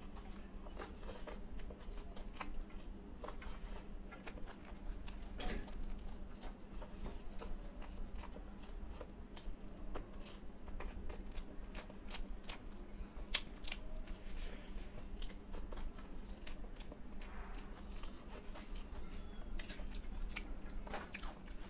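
Mouth sounds of someone eating rice by hand: chewing, lip smacks and finger licking, a stream of short wet clicks. A steady low hum runs underneath.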